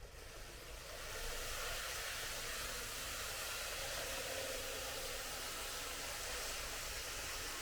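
Tomix N-scale model train running on its track: a steady whirring hiss of the motor and wheels that builds up over about the first second, then holds.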